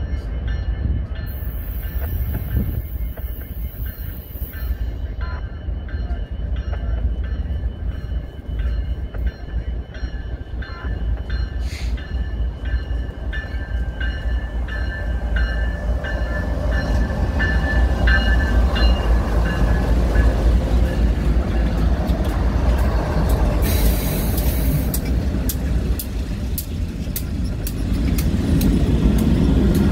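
A train rolling past with a steady low rumble of wheels on rail and thin, high wheel squeal in several tones. The squeal fades after about 20 s. It grows louder about two-thirds of the way in, with many quick clicks near the end.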